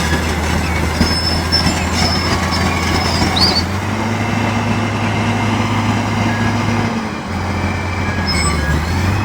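Heavy-equipment diesel engine running steadily under load with a low drone. Its pitch steps up about four seconds in and shifts again near seven and nine seconds.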